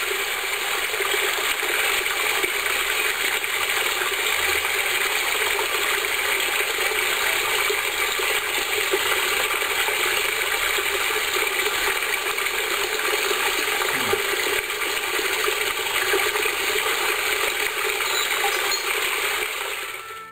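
A mountain stream flowing over rocks: a steady wash of water noise that fades out near the end.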